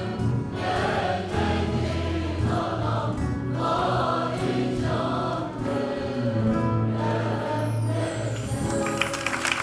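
A choir singing a Turkish folk song (türkü) in unison, with the audience's applause starting just before the end.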